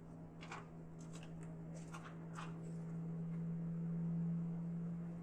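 A few light clicks and scrapes in the first two and a half seconds as the protective cover over the laptop's RAM slot is handled and fitted back into place, over a steady low hum that swells slightly near the end.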